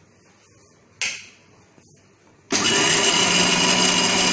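Electric mixer grinder with a steel jar switched on about two and a half seconds in, its motor starting abruptly and running loud and steady as it grinds a thick peanut chutney. A single sharp knock comes about a second in.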